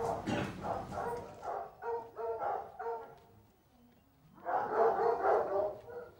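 A pack of foxhounds barking and yelping: a string of short yelps through the first three seconds, then after a lull many hounds give voice together for a second or two.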